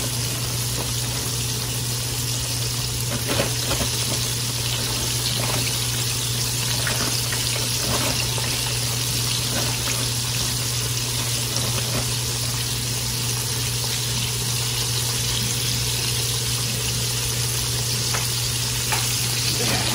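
Food deep-frying in hot extra virgin olive oil: a steady sizzle, with a few faint clicks now and then.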